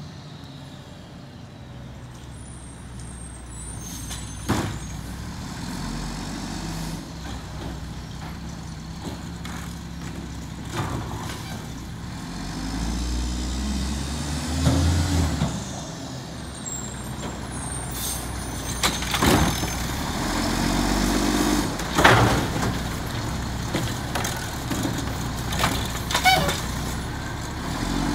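Mack MR side-loader garbage truck's diesel engine running as the truck creeps up the street and stops at the carts, growing louder as it comes closer. Several sharp air-brake hisses and knocks are heard along the way.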